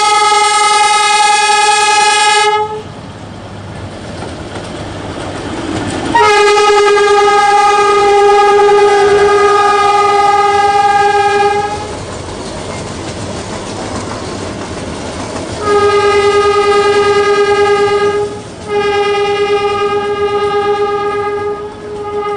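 NDM6 narrow-gauge diesel locomotive's horn sounding a single steady note in long blasts: one that cuts off about two seconds in, a long blast of about five seconds in the middle, then two more and a short toot at the end. Between the blasts the train is heard rolling.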